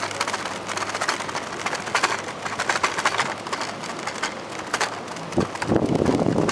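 Bicycle wheels rolling over the boards of a wooden boardwalk: a dense, irregular patter of clicks and rattles. About five seconds in, a louder low rushing noise comes up.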